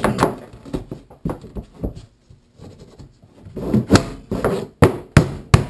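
Black mallet striking PVC pipe fittings to seat them on a cat-perch frame. A few scattered knocks come first, then a short lull, then a quick run of about five hard blows near the end.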